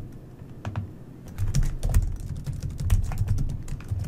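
Typing on a computer keyboard: quick, irregular keystroke clicks, sparse at first and coming thick and fast from about a second and a half in.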